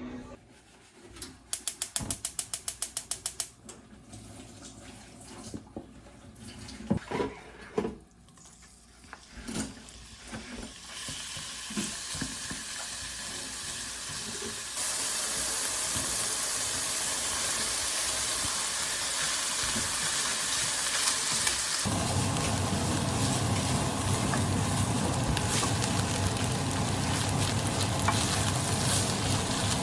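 Kitchen work sounds: a quick run of clicks and a few knocks, then a steady hiss like frying or running water that grows louder, with a low hum joining about two-thirds of the way in.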